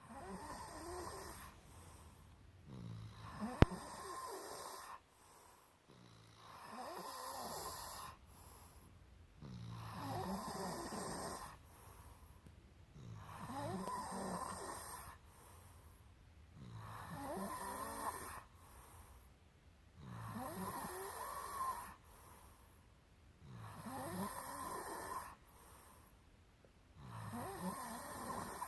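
Snoring in slow, regular breaths: about nine snores of two seconds or so each, one every three and a half seconds, with quieter breathing between. A single sharp click sounds about three and a half seconds in.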